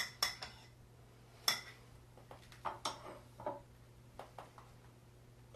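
A few sharp clinks of a metal Danish dough whisk against a mixing bowl in the first second and a half, then scattered lighter knocks and clinks as the whisk is set down on the counter.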